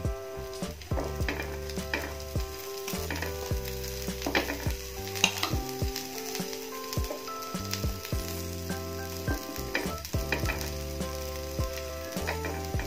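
Semolina batter sizzling gently on a nonstick tawa over a low flame, with a spoon tapping and scraping on it as mashed green peas are spread over the top.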